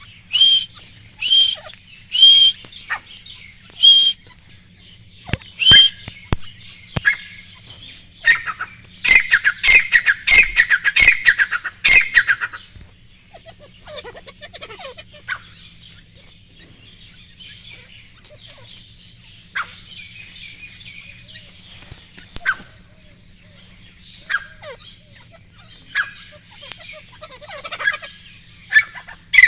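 Grey francolins calling: short, high calls about once a second, then a loud, rapid run of calls about eight to twelve seconds in, followed by quieter scattered calls.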